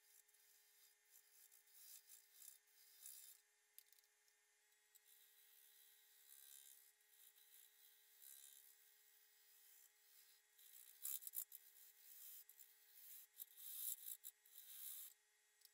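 Oneway Termite ring-cutter tool slicing the end grain of a spinning cherry bowl blank on a wood lathe: a faint, irregular hissing scrape that comes and goes as the cut is made, loudest and choppiest in the last few seconds.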